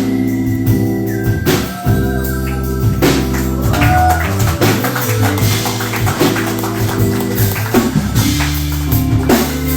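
Live band playing an instrumental passage of a hip-hop song: held bass and chords over a steady drum kit beat with tambourine.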